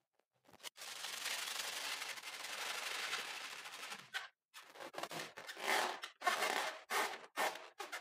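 A steady hiss for about three seconds, then irregular rubbing and crunching as fingers squeeze a balloon packed with small foam beads.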